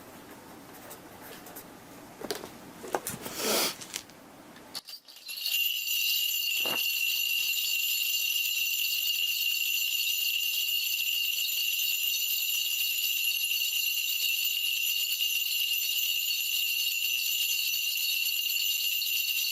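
A Korean shaman's ritual bell cluster shaken without a break, a continuous bright jingling that starts about five seconds in, after some quiet rustling and a few clicks. The bells are rung as the spirit divination begins.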